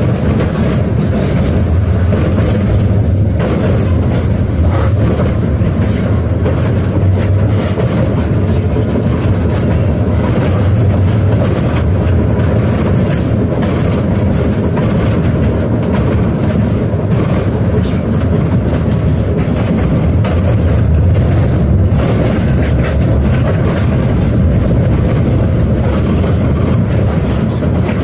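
Steady running noise of a UKVZ KTM-28 (71-628-01) tram, heard from inside the passenger saloon as it travels along the street: an even rumble of wheels on rails.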